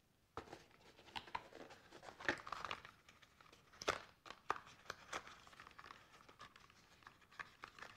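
Cardboard packaging being handled: rustling and crinkling with scattered sharp clicks and scrapes as items are lifted out of a foam-lined box, the loudest about two and four seconds in.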